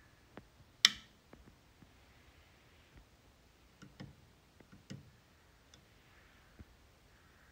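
Sharp clicks from a Marlec Solar iBoost control board under test: one loud click about a second in, then several fainter clicks around four to six seconds in as its push buttons are pressed to switch on manual boost.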